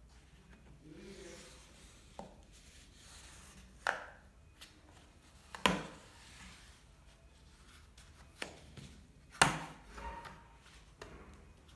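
Sharp clicks and snaps of a MacBook's case being prised open by hand and tool, with three louder snaps about four, six and nine and a half seconds in, the last the loudest, and light scraping and small taps in between.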